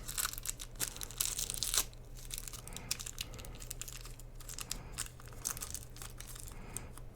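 Plastic packaging being crinkled and torn open by hand, in irregular rustles that are loudest in the first two seconds.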